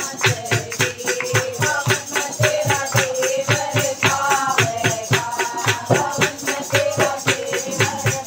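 Devotional bhajan kirtan: voices singing over a steady, fast beat of hand-claps and rattling percussion.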